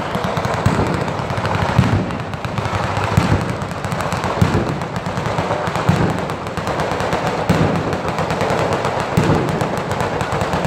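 Ground-level firecracker battery (batteria) going off: a continuous rapid crackle of bangs like machine-gun fire, with heavier booms standing out about every second and a half.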